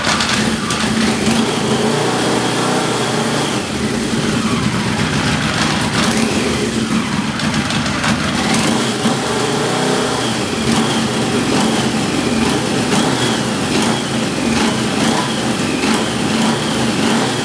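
Yamaha XJ650's air-cooled inline-four engine running and smoking heavily as it burns off automatic transmission fluid that was put into its cylinders. Its speed rises and falls a few times in the first half.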